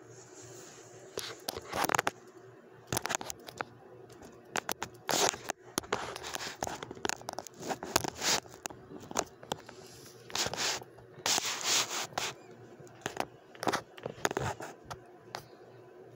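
A pet rat's claws scratching and scrabbling over a fabric blanket on a chair: irregular clusters of scrapes, rustles and small clicks, starting and stopping as it moves.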